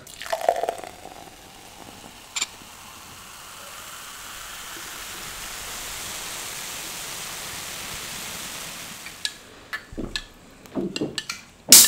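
Cola poured from a can into a tall glass, a steady hissing fizz that swells and then fades over several seconds. There is a single click a couple of seconds in and a few light clicks near the end.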